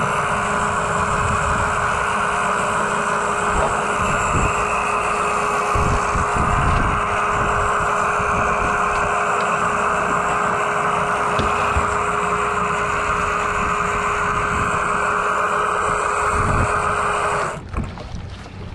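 Boat engine running steadily with a constant hum, cutting off abruptly near the end.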